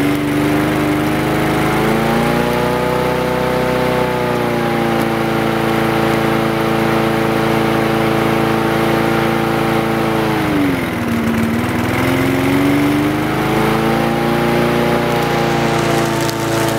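Propane-fuelled push lawn mower engine, a small single-cylinder four-stroke, running loudly. Its speed rises about two seconds in and holds steady, then sags around ten seconds before picking back up, as the propane valve is opened and closed to adjust the fuel flow.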